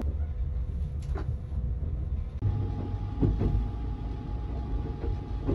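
Sunrise Express sleeper train running, heard inside the compartment as a steady low rumble with a few light knocks. The rumble drops out for an instant about halfway through.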